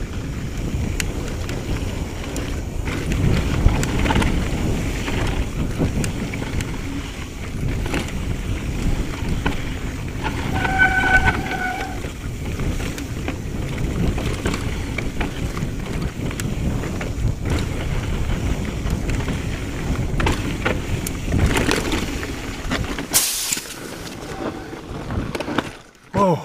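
Mountain bike descending a rocky dirt trail: steady rumble and rattle of the tyres over dirt and rock, with wind on the microphone and a brief high squeal about eleven seconds in. Near the end comes a short sharp hiss, then the riding noise drops away as the bike stops with a sliced tyre.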